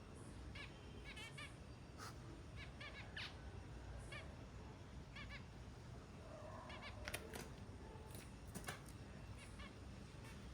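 Small birds chirping: short, high chirps repeated in quick clusters of two to four, with a few sharp taps or clicks in between.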